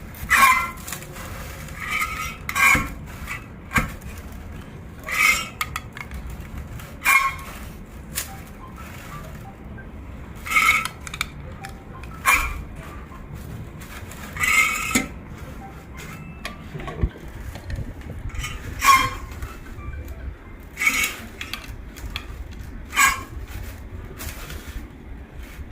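Hand-operated stainless steel metal-tube crimping machine being worked: sharp metallic clanks and clinks with a short ring, one every second or two, as its handle and jaws fold and crimp an aluminium tube.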